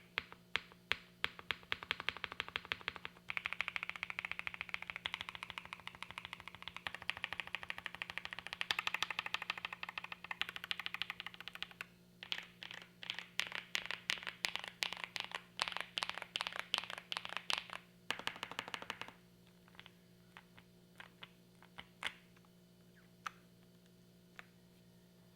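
Fast typing on a gasket-mounted mechanical keyboard with Creamcicle linear switches on a POM plate: a dense run of keystrokes that slows to a few scattered presses near the end.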